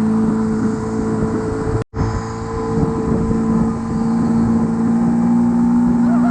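Motorboat engine running steadily at speed with a constant note, over rushing wind and water noise; the sound cuts out for an instant about two seconds in.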